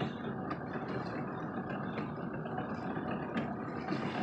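Boat motor running low and steady, with a few faint clicks.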